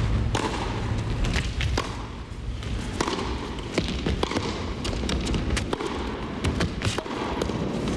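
Tennis rally: a string of sharp racket strikes on the ball, with bounces, coming every second or so over a steady low background hum.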